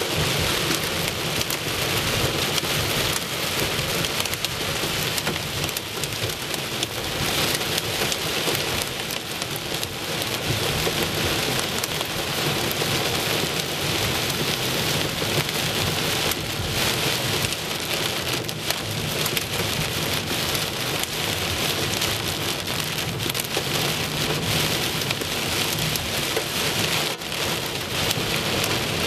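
Heavy rain and hail drumming on a car's roof and windshield, heard from inside the car: a dense, steady hiss of countless small impacts.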